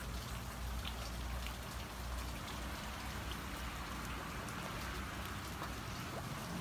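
Rain falling on shallow floodwater and wet leaf litter: a steady patter with scattered single drops ticking out, over a low rumble.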